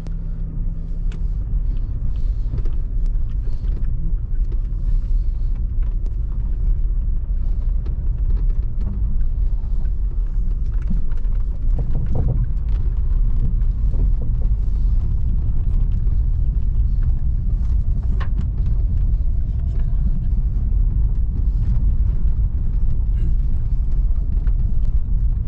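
Steady low rumble of a car driving along a road, with engine and tyre noise and a few light knocks.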